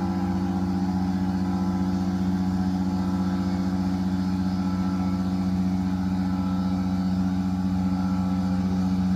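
Proxxon spindle motor on a homemade CNC router running steadily at high speed while milling plywood, a constant hum with a steady whine that does not change.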